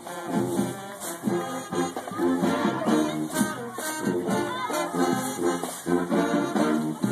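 High school marching band playing a tune, with the brass to the fore.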